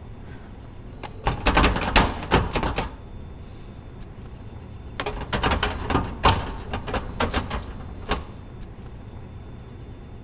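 Two bursts of rapid knocking and clattering, the first about a second in and the second around five seconds in, ending with a single knock near eight seconds.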